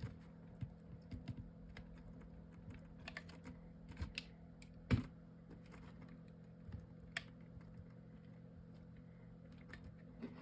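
Faint, scattered light taps and clicks of hands handling and pressing a paper-and-chipboard box while gluing it, with one sharper click about five seconds in, over a faint steady hum.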